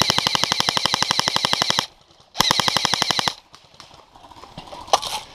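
Airsoft gun firing on full auto in two rapid bursts: a long burst of about two seconds, then after a short pause a second burst of about one second.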